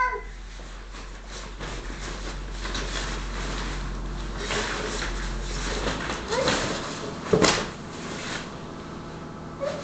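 Plastic ball-pit balls clicking and nylon play-tunnel fabric rustling as a toddler moves about inside the tunnel. Two brief louder knocks come about six and a half and seven and a half seconds in.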